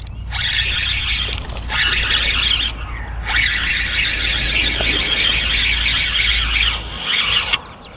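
Insects buzzing loudly and steadily in the grass, with a couple of brief breaks in the first three seconds and a drop near the end. Under it runs a low rumble of wind on the microphone, which stops near the end.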